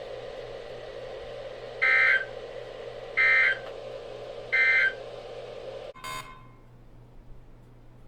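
Three short bursts of EAS/SAME digital data tones, evenly spaced about a second and a half apart: the end-of-message code that closes a weather radio alert. A steady hum from the radio channel runs under them and cuts off with a click about six seconds in.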